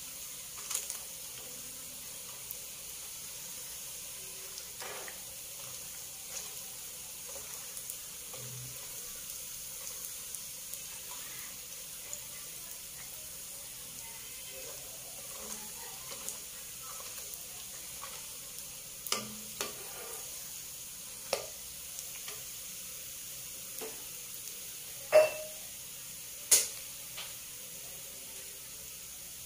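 Peanut peyek crackers frying in hot oil in a stainless steel wok: a steady sizzle, with a metal ladle and spatula now and then clinking and scraping against the wok. The sharpest clinks come in the second half, two loud ones near the end.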